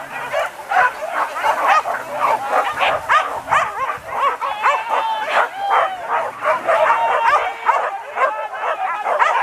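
A pack of hunting dogs yelping and barking at once as they run, many high, overlapping yips in a continuous chorus with no break.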